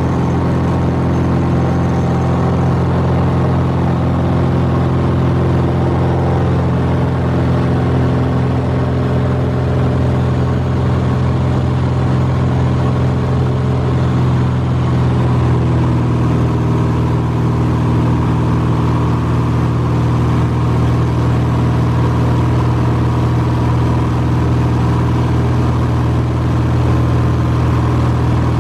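Cessna 180's six-cylinder Continental O-470 engine and propeller running steadily in flight after take-off, heard from inside the cockpit as a loud, even drone. Its tone shifts slightly about fifteen seconds in.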